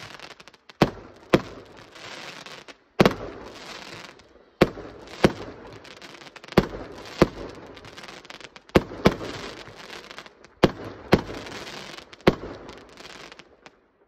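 A run of sharp bangs, one every second or two and often in close pairs, each with a short echoing tail, over a steady crackling hiss.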